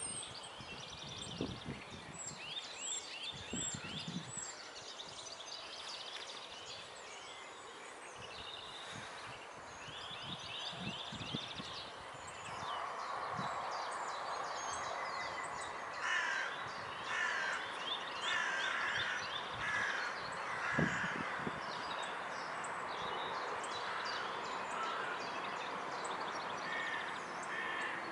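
Wild birds singing and calling: many quick high notes and rapid trills. From about halfway there is a run of louder, harsh repeated calls, over a steady background hiss that grows stronger.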